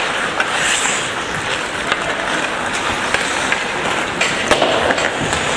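Ice hockey play on the rink: a steady scraping hiss of skates on the ice, with scattered sharp clacks of sticks and puck.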